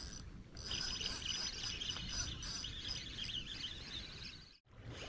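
Shoreline ambience: a low, steady rumble of wind and water with faint, high-pitched bird chirps over it. The sound cuts out for a moment near the end.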